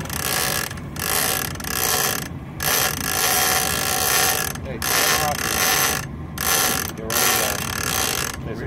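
Big-game conventional reel's drag screaming as a hooked bluefin tuna strips line off. It comes in surges of a second or two with brief stops between.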